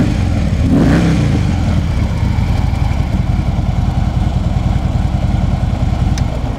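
The 103-cubic-inch V-twin engine of a 2014 Harley-Davidson Tri Glide idling steadily, with a short rise and fall in pitch, a quick rev, about a second in. The engine has liquid-cooled heads and has just been started to show how it sounds.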